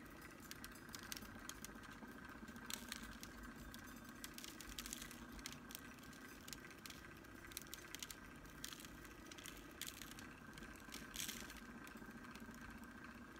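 Faint, irregular light taps and ticks as a finger taps a shaker bottle of chunky glitter, sprinkling it onto a cup, over a steady faint hum.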